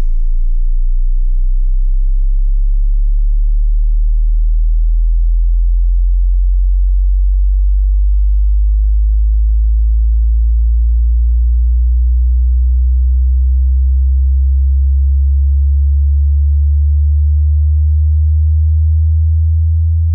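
Subwoofer bass test tone: a pure sine sweep rising slowly and steadily in pitch from deep bass up to around 90 Hz.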